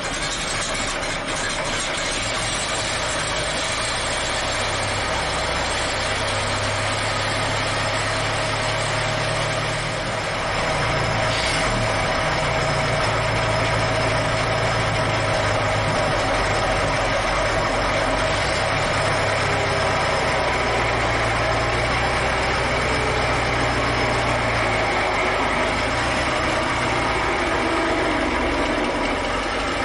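Ford Model T four-cylinder flathead engine running steadily at idle, getting a little louder about ten seconds in, as it is run to test freshly fitted neoprene-bonded oil pan bolt washers for leaks.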